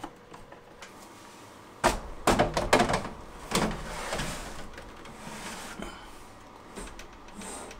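Metal battery pack of an APC Smart-UPS 3000, holding eight sealed lead-acid batteries, being handled and pushed into the UPS's battery bay. Light clicks come first, then loud metal knocks and clunks about two seconds in, followed by a scraping slide that fades out.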